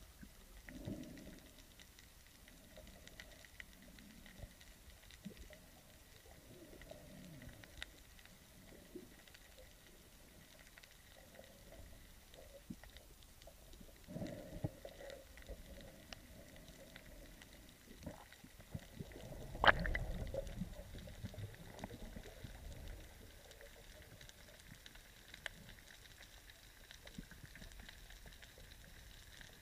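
Underwater sound heard through a camera housing: faint muffled water movement and low rumbles with scattered small clicks and knocks. One sharp knock stands out about two-thirds of the way through, followed by a brief low rumble.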